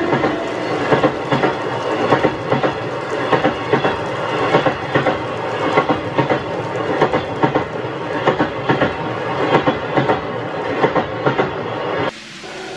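N-gauge model train's 20-series passenger cars rolling past, their wheels clicking over the rail joints in a quick, uneven clatter. The sound drops away suddenly near the end.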